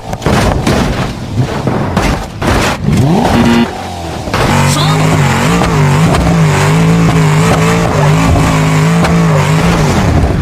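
A run of crashing knocks and impacts, then from about halfway a car engine running with its pitch rising and falling in an even, wavering pattern.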